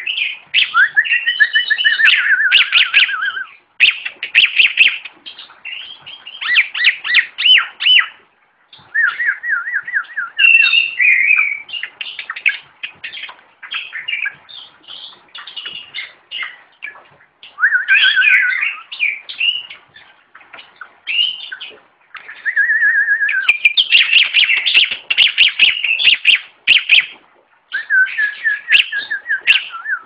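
Caged songbird singing: loud phrases of rapid, varied chirps and trills, some made of quick repeated notes, broken by short pauses.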